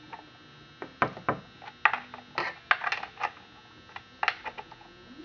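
Irregular sharp clicks and knocks, one or two a second, from tightening down the bar nuts on a chainsaw after the chain has been tensioned.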